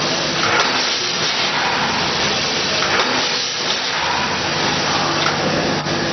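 Vertical seed-packaging machine running: a steady loud hiss of machinery with a faint low hum underneath.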